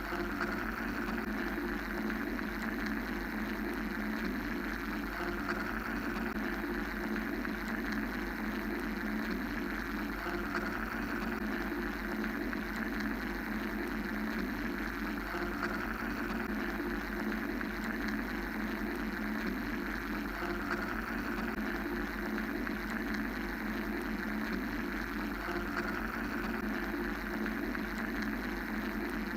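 Steady mechanical drone used as white noise: a continuous whirring hum with a low rumble underneath, the higher hiss gently swelling and easing every few seconds.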